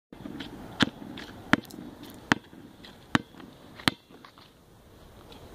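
Basketball dribbled on an asphalt court: five sharp bounces, about one every three-quarters of a second. The bouncing stops about four seconds in, when the ball is caught.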